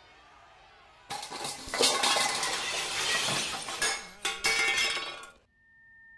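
Loud clattering and clinking that starts about a second in, runs for about four seconds and stops abruptly, followed by a faint steady tone.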